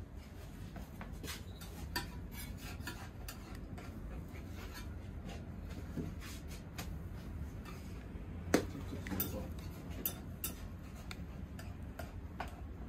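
Metal spatula scraping and tapping on a flat griddle as pancake rounds are turned, in irregular light clicks and scrapes with one louder knock a little past the middle, over a low steady hum.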